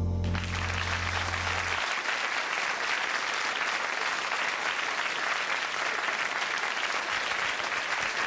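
Studio audience applauding at the end of a song, while the folk ensemble's last held low chord dies away about two seconds in.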